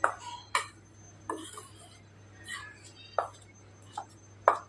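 A metal spoon stirring dry gram flour in a stainless-steel bowl, scraping and knocking against the bowl in about seven short, uneven strokes.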